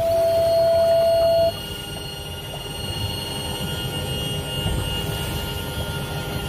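Twin outboard motors running with wind and water noise as the boat moves through open water. A loud steady single-pitched tone sounds over it for the first second and a half, then cuts off suddenly.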